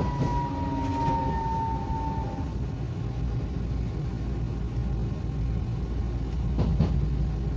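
Tokyu Setagaya Line 300 series car running, heard from inside: a faint motor whine falls slightly in pitch and fades over the first couple of seconds, leaving the low rumble of wheels on the rails, with a few short knocks near the end.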